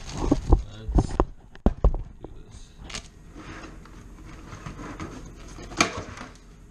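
Clear plastic clamshell food container knocking and clicking against the countertop as it is handled and its lid pried open: a quick run of sharp knocks in the first two seconds, then scattered clicks and rustling, and one more sharp knock about six seconds in.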